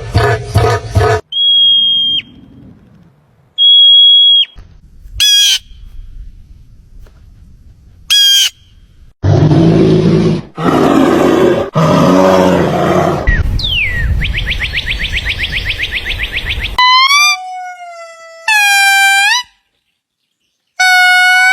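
A run of different animal calls, one after another with short gaps: two steady high whistles, a couple of brief chirps, a loud harsh call around the middle, a buzzing trill, then several falling cries near the end.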